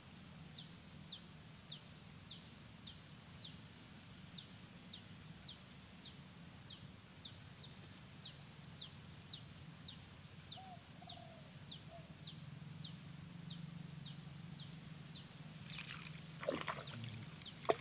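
A bird repeating a short falling chirp about twice a second over a steady high insect drone. About sixteen seconds in, splashing breaks out as a hooked fish thrashes at the surface.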